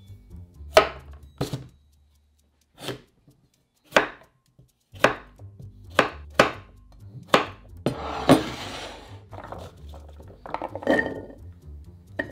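Chef's knife chopping a sweet potato on a wooden cutting board: about a dozen sharp knocks at uneven intervals. Near the end come scraping and a clatter as the cut cubes are pushed into a glass bowl. A faint music bed runs underneath.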